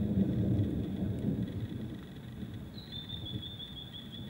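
Rolling thunder rumbling low, loudest at first and dying away over about two seconds. A faint steady high whine runs under it, and about three seconds in a rapid chirping joins it.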